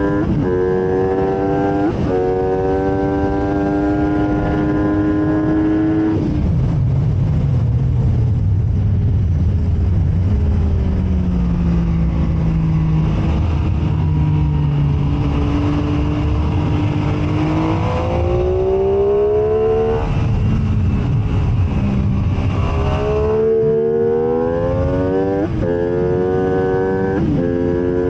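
MV Agusta F3 675's three-cylinder engine at racing revs: pulling hard with quick upshifts, then off the throttle for a corner with a lower rumble for several seconds, then winding up again through the gears with rising pitch and a quick upshift every couple of seconds near the end.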